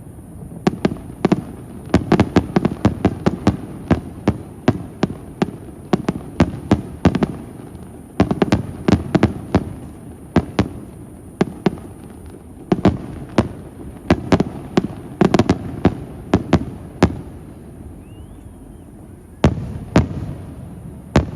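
Fireworks bursting overhead in rapid volleys of sharp bangs, then a lull of a couple of seconds before two last bangs near the end.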